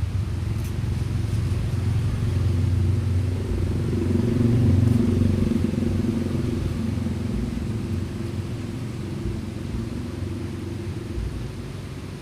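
Low rumble of traffic crossing the bridge overhead, swelling to its loudest about five seconds in and then slowly fading.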